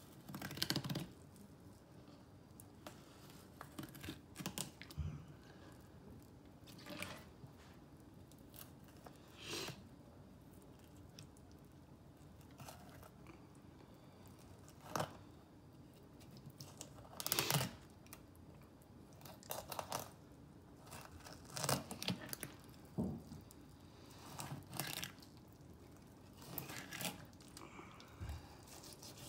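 Knife cutting a fillet off a crappie on a plastic cutting board: short, irregular cutting strokes through the skin and rib bones, a second or two apart.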